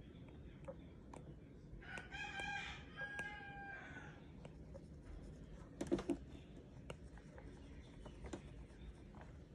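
Apple Pencil tip tapping and stroking on an iPad screen, as faint scattered clicks. About two seconds in, a drawn-out pitched call in two parts lasts about two seconds in the background. A single louder knock comes near six seconds.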